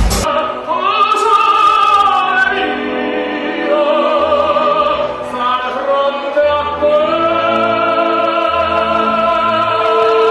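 Operatic singing in a breakdown of an electronic dance track: long held notes that glide slowly in pitch, with the kick drum dropped out just as it begins.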